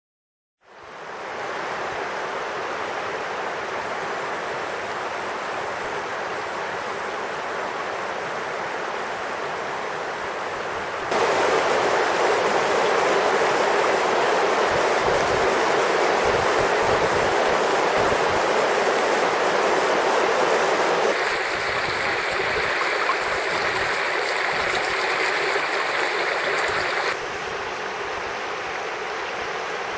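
Shallow river water rushing steadily over a stony bed. The level jumps up abruptly about a third of the way in and drops back in two steps later.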